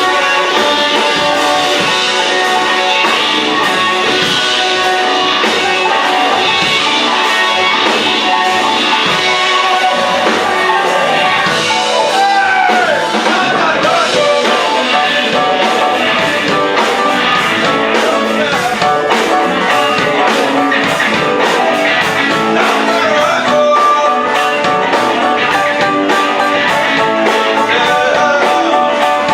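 Live rock band playing at full volume, with electric guitar over bass and drums and held notes from keys or horns. A few notes bend in pitch partway through.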